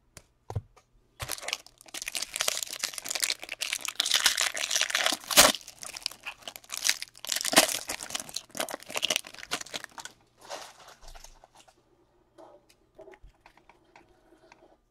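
Foil wrapper of a trading-card pack being torn open and crinkled by hand: a dense crackling rustle lasting about nine seconds, its loudest crackle about halfway through. The rustle then gives way to faint clicks as the stack of cards is handled.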